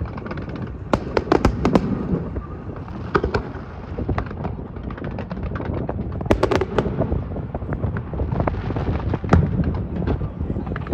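Aerial fireworks going off: a continuous run of bangs and crackling pops, with thicker clusters about a second in, around six seconds in and again near nine seconds.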